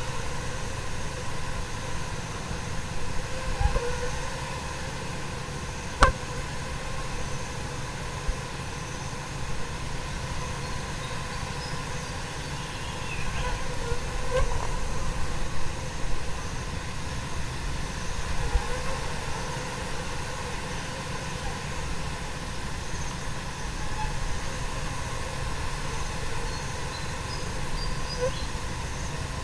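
A dense swarm of tiny fruit flies buzzing, the countless wings making a steady hissing hum like light rain. A single sharp click about six seconds in.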